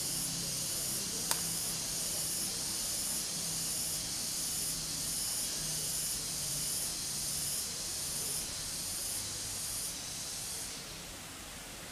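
Cicadas buzzing in a pulsing chorus, about two pulses a second, cutting off abruptly near the end. One sharp click sounds about a second in.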